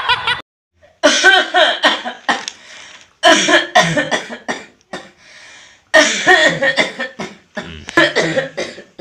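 A man coughing hard in two long fits of repeated harsh coughs, the first starting about a second in and the second about six seconds in.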